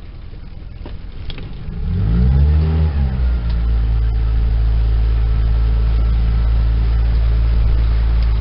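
Pontoon boat's outboard motor throttled up, its pitch rising and falling about two seconds in, then running steadily under power. The motor's sound drops away suddenly at the end.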